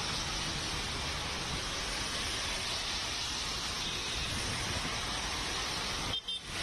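Steady hiss of rain and traffic on a wet road, with cars and scooters passing. The sound cuts out briefly near the end.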